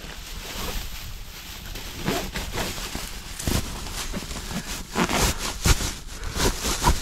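Dry marsh grass rustling and crackling as handfuls are grabbed and pulled, in irregular crunches that come thicker and louder in the second half.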